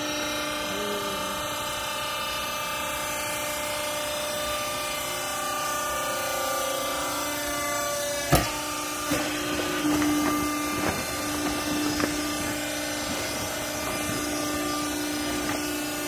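Hydraulic power pack of a vertical waste-rags baler running with a steady hum. About eight seconds in there is one sharp clack, followed by a few lighter knocks over the next few seconds.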